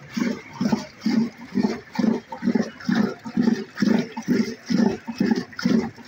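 Curd being churned into lassi with a cloth-wrapped wooden stick in a metal bowl: rhythmic wet sloshing, about two strokes a second.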